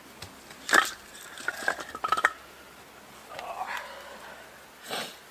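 Short cut log rounds knocked together and set down on a log stack: a few sharp wooden clacks about a second in and again around two seconds in, then a softer rustle and one more knock near the end.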